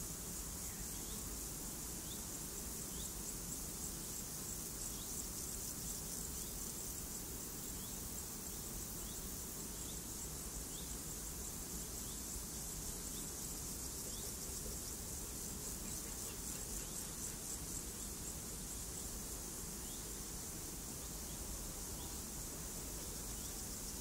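Steady high insect trilling, like meadow crickets or grasshoppers, over a low steady rush of falling water. Faint short chirps come every second or two.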